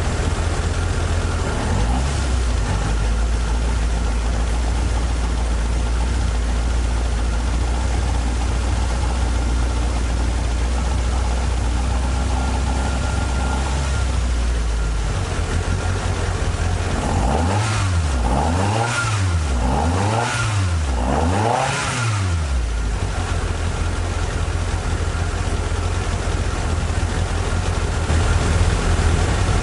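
Toyota AE86's 4A-G twin-cam four-cylinder engine idling steadily, then blipped up in about four quick revs around two thirds of the way through before settling back to idle.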